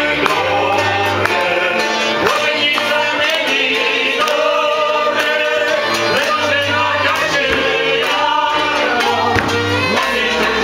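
Music with several voices singing together, men's voices among them, over a steady bass line.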